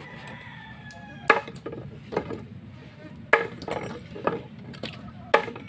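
Anahaw palm frond stalks being chopped into pieces with a blade: three sharp strikes about two seconds apart, with lighter knocks in between.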